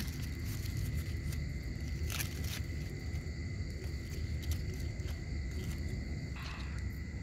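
A steady low rumbling drone, with brief crinkles of aluminium foil being pulled open about two seconds in and again near the end.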